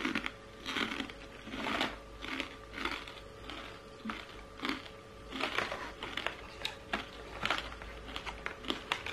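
Crunchy chewing of a crispy fried chicken skin snack mixed with the crinkling of the plastic snack bags being picked up and handled, in irregular short bursts.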